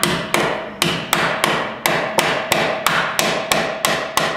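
Hand hammer striking a Chevy 1500's upper control arm at the ball joint, a steady run of hard blows about three a second, each with a short metallic ring.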